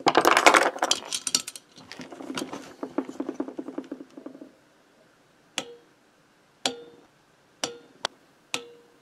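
Click-type torque wrench on cylinder head nuts: rattling, then a fast run of ratchet clicks as a nut is run down, then five sharp single clicks with a short metallic ring, about a second apart, as the wrench breaks at its 15 N·m setting.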